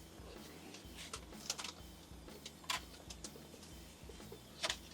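Eating from takeout containers: a few short, sharp clicks and rustles, spaced a second or more apart, over a faint low steady hum.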